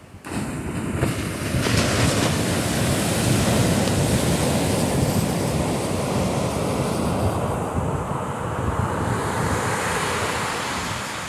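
Surf breaking and washing up the beach, a dense rushing that comes up sharply just after the start and eases toward the end, with wind buffeting the microphone.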